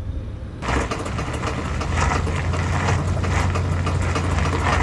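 Ford Ranger pickup in 4-high pulling away while turning, engine running under load with repeated clicking and knocking from the drivetrain. The clicking comes only when turning under power in four-wheel drive, not in two-wheel drive, and the front axle shaft boots are intact.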